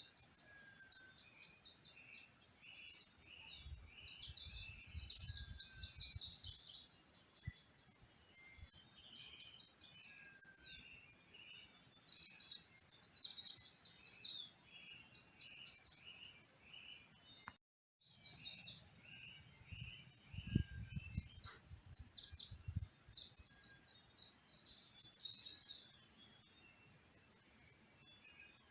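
Tropical forest dawn chorus: a rapid, high-pitched trill repeats in bouts of a few seconds, with short whistled bird notes and chirps between. The sound cuts out completely for a moment about two-thirds of the way through, and low rumbles come twice.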